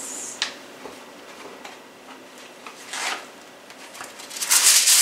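A few quiet handling noises and a click, then near the end a sheet of aluminum foil being pulled off its roll with a loud crinkling rustle.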